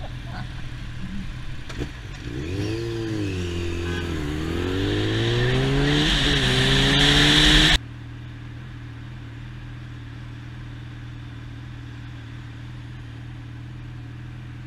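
Motorcycle engine revving and pulling away: the pitch rises, dips briefly, then climbs steadily with growing wind noise and loudness before it cuts off abruptly. After that a motorcycle engine idles steadily.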